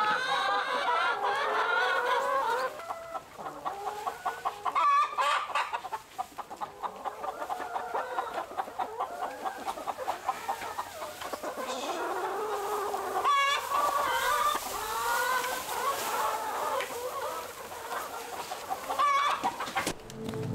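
A flock of laying hens clucking, many overlapping calls, with a couple of sharper squawks about five seconds in and again past the middle.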